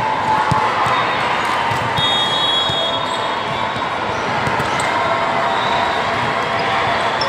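Gym ambience during a volleyball match: a steady hum of crowd chatter with scattered thumps of the ball being hit and bouncing on the court. A brief high squeak comes about two seconds in.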